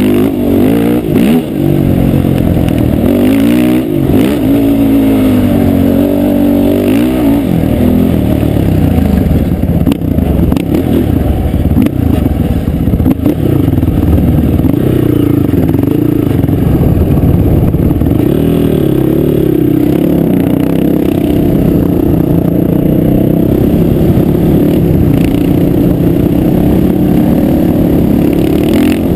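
Sport quad engines running close to the microphone. The pitch rises and falls with the throttle over the first several seconds, then settles into a steadier run with occasional revs.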